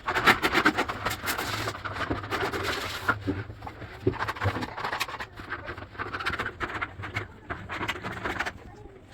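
Heatex contact adhesive being spread over a mica laminate sheet: irregular scraping, rubbing strokes of the spreader against the sheet, with a low hum underneath.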